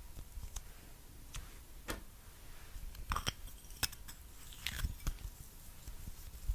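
Clear slime being worked by hand, giving irregular sharp clicks and wet pops, with a louder cluster of pops about three seconds in and again near five seconds.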